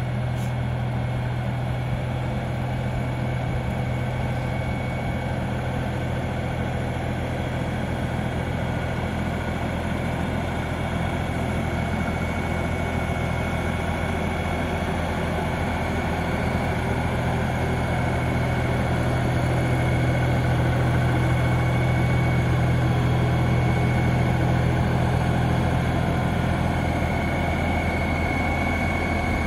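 LS 4140 tractor's diesel engine running steadily while the tractor carries a load on its front loader, with a steady high whine over the engine hum. It grows a little louder about two-thirds of the way through as the tractor comes closer.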